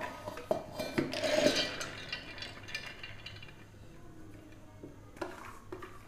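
Soaked chana dal (split chickpeas) poured from a steel bowl into a stainless-steel mixer-grinder jar: the wet lentils slide and rattle into the jar with light clinks of metal on metal. It is loudest in the first two seconds, then fades to quieter scraping as the last lentils are pushed out by hand, with a few sharp clinks near the end.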